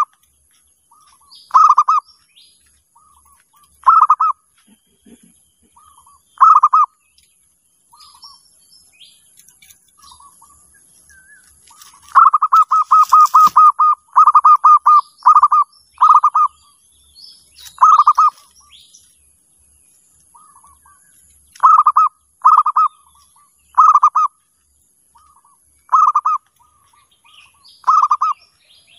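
Zebra dove (perkutut) cooing: short, rapid trilled coo phrases repeated about every two seconds, with a quicker run of several phrases in a row around the middle. Faint high chirps of small birds sound between the phrases.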